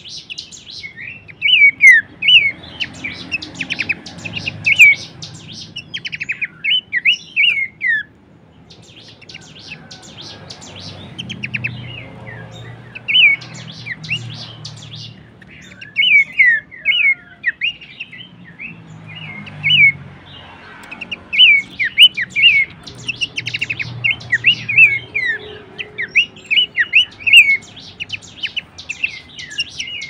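Horsfield's babbler (pelanduk semak) singing: rapid bursts of sharp, chattering whistled notes in phrases of a second or two. There is a quieter pause about eight to eleven seconds in.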